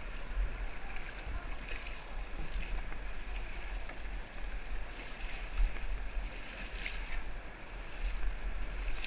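Rushing whitewater of a river rapid around an inflatable raft, with wind buffeting the microphone and a few sharper splashes.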